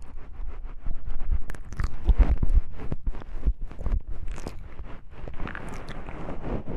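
Close-miked ASMR handling of small wooden knobs: a dense, irregular run of clicks and taps with soft rustling and a few low thumps.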